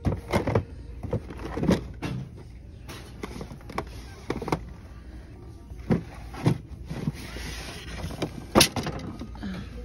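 Irregular clicks and knocks, about a dozen, over a steady low rumble, with a brief hiss shortly before the loudest knock near the end.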